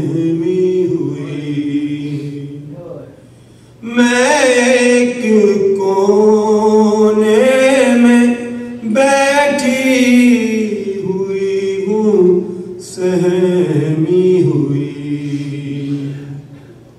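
A man's voice chanting an Urdu noha (Shia lament), unaccompanied, in long drawn-out wavering notes. There is a brief pause about three seconds in, and the line tails off near the end.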